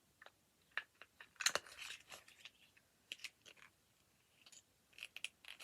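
Cosmetic products and their packaging being handled: scattered light clicks and taps, with a brief crinkle or rustle about one and a half seconds in.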